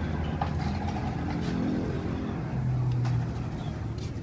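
Small single-cylinder motorcycle engine running, revved up briefly about two and a half seconds in and then dropping back.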